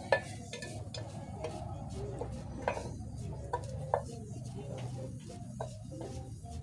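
A knife cutting spring onion held in the hand over an aluminium cooking pot: irregular sharp clicks and taps as the blade cuts through and knocks the pot rim, over a low steady background hum.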